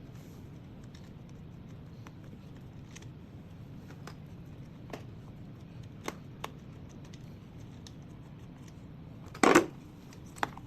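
Scattered light clicks and taps of a screwdriver and small metal and plastic parts being handled while screws are taken out of an electric scooter's handlebar display, with one louder short clatter about nine and a half seconds in.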